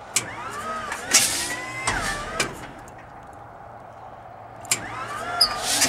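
A 1941 Stearman's Pratt & Whitney R-985 nine-cylinder radial being cranked on its clutch starter in two bursts, about five seconds apart, each with a whine that rises and falls. Sharp pops and short hissing blasts come from the blowout plugs fitted to vent oil trapped in the cylinders by hydraulic lock after a winter's sitting. The engine does not catch.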